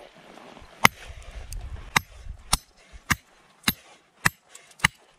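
An Ontario SP-53 bolo knife's 5160 carbon-steel edge chopping into a brick: seven sharp strikes, the first about a second in, then one roughly every 0.6 s, each with a brief metallic ring. The blows are knocking chunks out of the brick.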